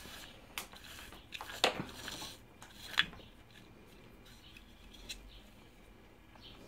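A few light clicks and knocks of metal parts being handled while a new cord is threaded through the recoil starter pulley of an Iseki KF340 engine, the loudest about three seconds in, then only faint handling rustle.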